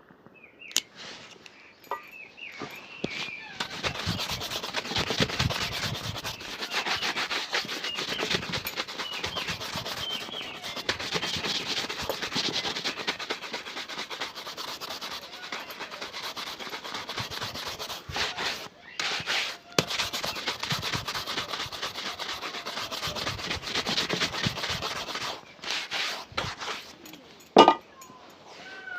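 A shoe being scrubbed with a shine brush or cloth in fast, continuous scratchy strokes, with brief pauses past the middle. A single sharp knock near the end is the loudest sound.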